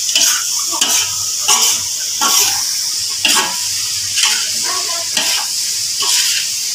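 A stir-fry of peas, shrimp and tempeh sizzling in a metal wok with a steady hiss, while a spatula scrapes and turns it in short strokes a little more than once a second.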